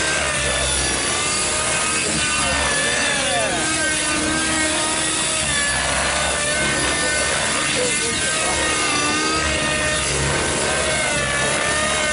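Nitro-powered Compass 3D Plus RC helicopter flying aerobatics: its glow engine and rotor blades run at a high whine whose pitch rises and falls again and again as the load and speed change.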